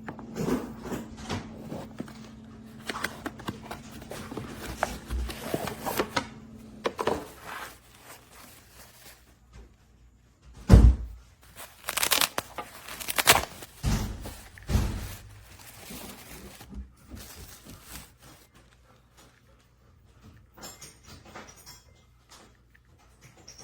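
Handling noises: clicks, knocks and rustles, with several louder thuds between about ten and fifteen seconds in. A steady low hum runs under them for the first seven seconds, then stops.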